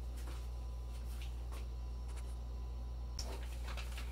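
Kitchen room tone: a steady low hum with a few faint ticks, and a sharper click about three seconds in.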